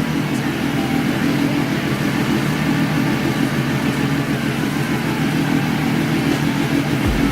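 Benelli TNT 1130's inline three-cylinder engine idling steadily through a rebuilt carbon-fibre slip-on exhaust with its butterfly valve removed, on its first start of the year.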